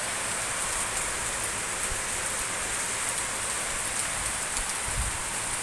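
Steady rain falling: an even hiss with many fine drop ticks.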